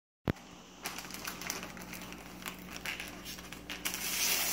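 Sharp click at the start, then Christmas wrapping paper crinkling and rustling in irregular bursts as a large flat gift is unwrapped by hand, growing louder and denser near the end as the paper is torn open.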